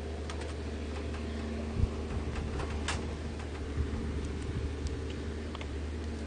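Scattered light clicks and taps of chopsticks, spoon and a plastic water bottle being handled at a table, with one louder thump about two seconds in, over a steady low hum.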